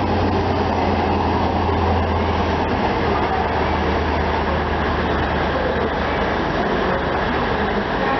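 Diesel High Speed Train with class 43 power cars pulling away, its power car engine giving a steady low drone that weakens over the last few seconds as the train moves off.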